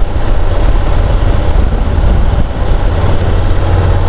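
Steady, loud riding noise from a Honda NC750 motorcycle under way: a deep continuous rumble of engine and wind rush, with no gear changes or distinct events.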